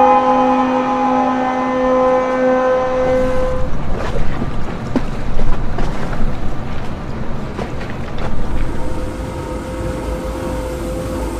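A ship's horn sounds one long steady blast that cuts off about three seconds in, followed by wind and water noise with scattered knocks. Near the end the low engine of a heavy military truck runs.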